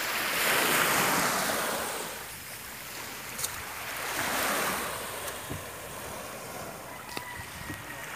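Small surf waves washing onto a sandy shore, rising in two swells, one near the start and another about halfway through. A few light clicks come through as well.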